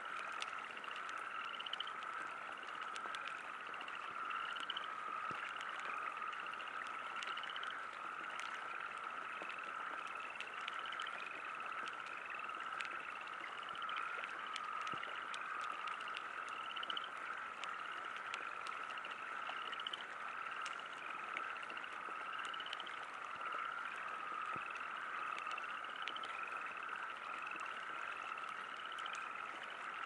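Frogs croaking in a steady chorus, with one call repeating about once a second as a short rising note. Light rain falls underneath, with scattered faint drop ticks.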